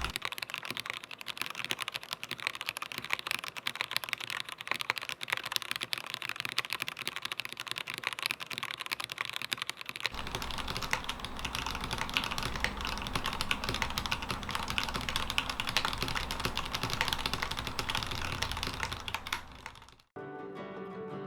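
Meletrix Zoom TKL DYNA keyboard being typed on quickly and continuously, a dense stream of key clicks. Near the end the typing fades out and soft plucked guitar music begins.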